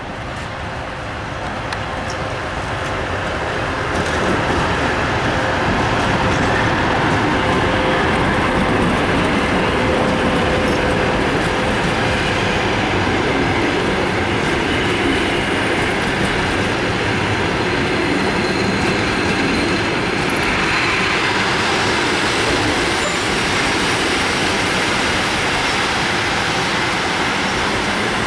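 A 2TE116 diesel locomotive drawing close and passing with its engines running, followed by a passenger train rolling past. The noise builds over the first few seconds, then holds steady as the coaches' wheels rumble and clatter over the rails.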